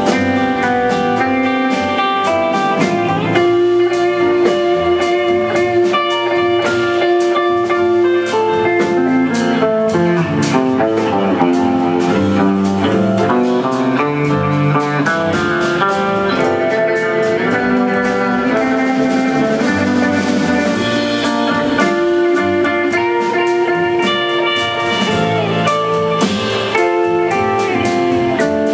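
Live band playing a song, electric guitar to the fore over upright bass, piano and drums.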